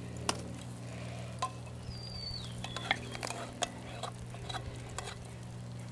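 Metal spoon scraping and tapping inside a tin can as canned mushroom gravy is scooped out into a cast-iron Dutch oven of stew: scattered light clicks and scrapes over a steady low hum, with a brief high squeak about two seconds in.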